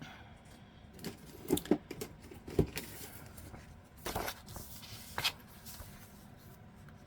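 Paper being handled, with a few light knocks of things set down on a work table in the first few seconds and two short rustling swishes later on.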